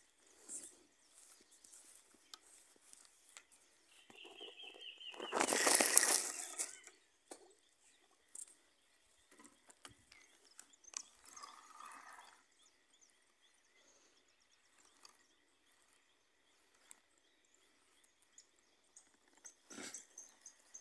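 Quiet outdoor ambience with faint bird chirps. About five seconds in comes a loud rush of noise lasting a second or two, with a weaker one around eleven seconds and a single knock near the end.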